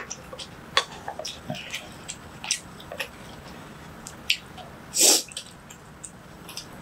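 Close-up eating sounds: wet chewing clicks and mouth smacks while soup is ladled into a spoon, with one louder, longer wet sound about five seconds in.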